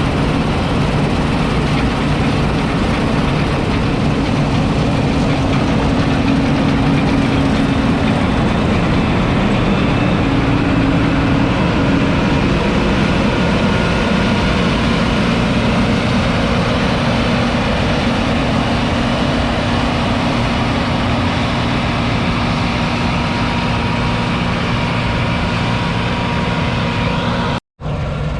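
The John Deere 9780i CTS combine harvester's 8.1-litre six-cylinder diesel engine running steadily. Near the end it breaks off for an instant, then comes back slightly quieter.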